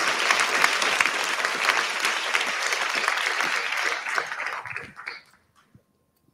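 Audience applauding: dense, overlapping hand claps that thin out and die away about five seconds in.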